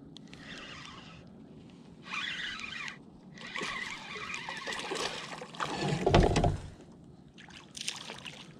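Water sloshing and trickling around a plastic kayak, with handling noise and a heavy bump about six seconds in.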